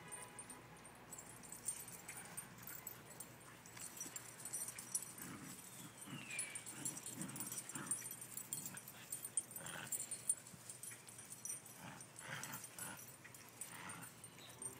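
A Great Dane and a Shetland sheepdog playing tug of war with a rope toy: scattered short dog sounds, with a falling whine about six seconds in.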